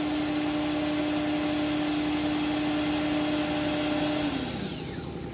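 The hinge-milling spindle of a door hinge and lock drilling machine runs with a steady whine over cutting noise while it mills a hinge recess into the door edge. About four seconds in, the whine falls in pitch and the noise dies away as the spindle winds down.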